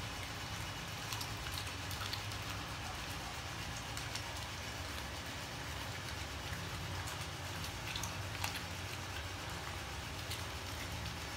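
Belgian Malinois chewing raw chicken feet, with scattered short crunches and clicks of bone over a steady background hiss and low hum.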